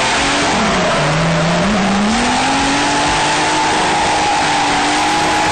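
Turbocharged BMW M30 straight-six of an E30 drift car at high revs, over the hiss and squeal of the rear tyres sliding sideways. The revs dip about a second in, then climb back and hold high.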